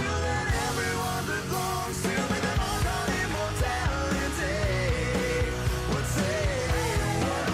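Rock song with a sung vocal line over electric guitar, bass and drums.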